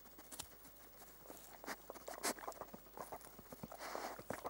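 Faint footsteps and rustling through long meadow grass, a scatter of soft irregular steps with a few brief swishes.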